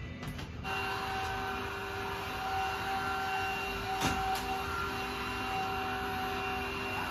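Cordless stick vacuum cleaner running at a steady high motor whine over floor-suction noise, setting in under a second in. There is a brief click about four seconds in.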